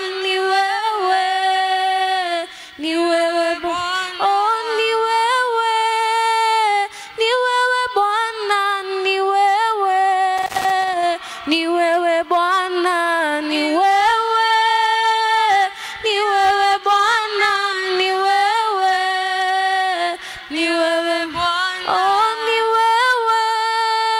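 A woman singing a slow worship song alone into a microphone, unaccompanied, holding long notes with short breaths between phrases.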